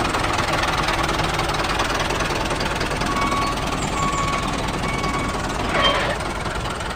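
Small engine running with a steady knocking rattle, just after starting up.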